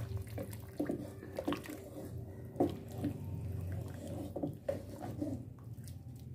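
Hot chicken corn soup sloshing in a steel pot as it is stirred with a wooden spoon, with irregular light knocks of the spoon against the pot.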